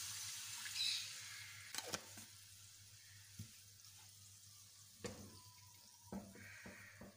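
Marinated chicken thigh sizzling in oil in a frying pan as half a cup of water is poured in. The sizzle is loudest at the start, dies away over about two seconds into a faint simmer, and a few light knocks come later.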